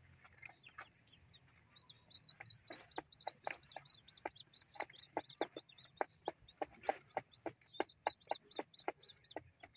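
Newly hatched native chicken chicks cheeping in a fast run of short high peeps, while they and the mother hen peck grain off cardboard in quick sharp taps, about three or four a second.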